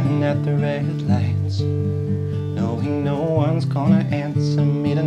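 Instrumental Americana intro: strummed acoustic guitar and pedal steel guitar, the steel's notes gliding and bending in pitch, over a steady bass line.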